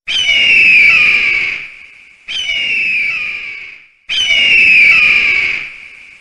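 Bird-of-prey screech, given as a kite's call, looped as a phone ringtone: three loud, raspy calls, each falling in pitch over about a second and a half, repeating about every two seconds.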